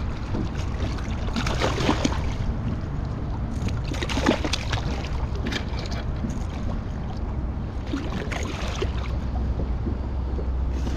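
Water sloshing and splashing against a kayak as a small hooked snook is brought to the side, with a few short splashes over a steady low wind rumble on the microphone.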